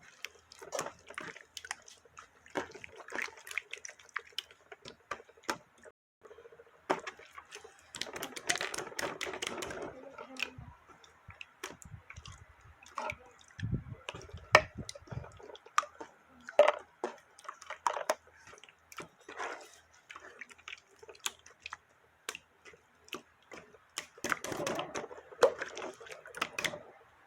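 Slime being squished and pressed by hand: a run of wet clicks and sticky pops, coming in uneven clusters.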